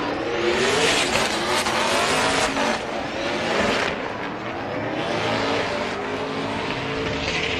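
Drift car sliding through a corner: its engine revs hard, pitch rising and falling with throttle stabs, over the loud hiss and screech of spinning tyres. The engine eases briefly about four seconds in, then picks up again.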